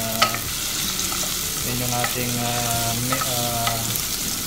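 Garlic, onion, ginger and tomato sizzling in oil in a pot while being stirred with a spoon, which clinks against the pot several times, sharpest about a quarter second in.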